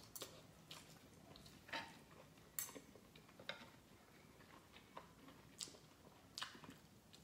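Metal fork and knife clicking and scraping against a skillet as food is cut and picked up. The clicks are light and scattered, about eight of them, the sharpest midway through.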